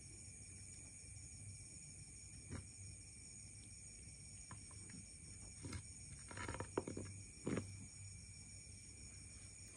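Faint handling noises from a section of bamboo being turned over and probed in the hands: a few soft knocks, with a louder cluster of knocks and rustles past the middle. Under them runs a steady low hum with a thin high-pitched whine.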